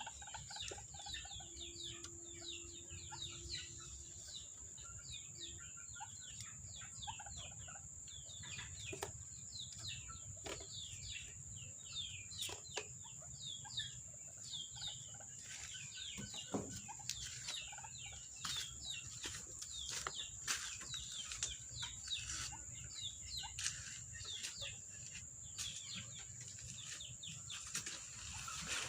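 Birds chirping in many quick, high, downward-sliding notes, with some clucking and scattered clicks. A steady high whine runs underneath.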